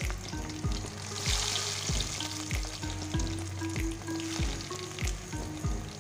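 Breaded chicken-and-tapioca cutlets sizzling in hot oil in a metal kadai on a low flame. The sizzle flares up for a moment about a second in as more cutlets go into the oil. Background music with a steady beat runs underneath.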